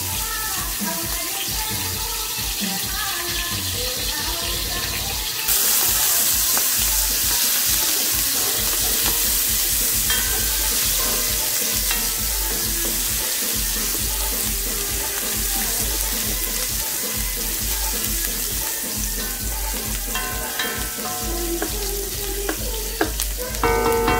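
Chopped onion frying in hot oil with a steady sizzle. About five seconds in, the sizzle jumps suddenly louder as more onion goes into the oil.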